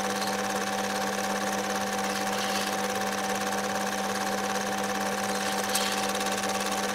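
Home-movie film projector running: a steady mechanical whir and hum with a fast, even clatter of the film advancing. A faint click about six seconds in.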